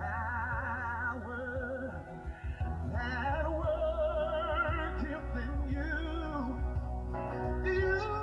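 Music with a singing voice holding long notes with a wide vibrato, over a steady low bass.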